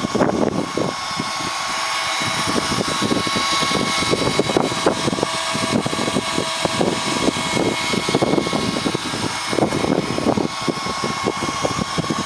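CAT excavator running steadily through its demo, with a constant whine, while wind buffets the microphone.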